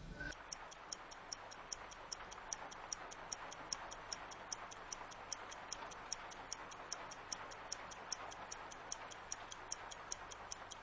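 A clock ticking quickly and evenly, several ticks a second, over a faint steady hiss.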